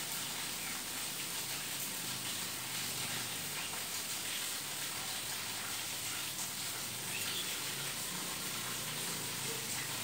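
Steady background hiss of outdoor ambience, with a couple of faint, short chirps in the distance, about half a second in and again about seven seconds in.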